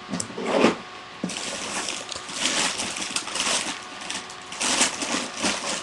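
Canned compressed-air gas duster spraying in a series of hissing bursts of uneven length. A louder knock of something being handled comes about half a second in.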